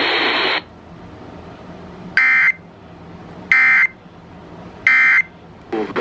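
Three short EAS end-of-message data bursts, buzzy two-tone digital tones about a second apart, coming through an FM radio's speaker from a station relaying a Severe Thunderstorm Warning; they mark the end of the alert. Broadcast audio cuts off about half a second in, and ragged bursts of static start near the end as the radio is retuned.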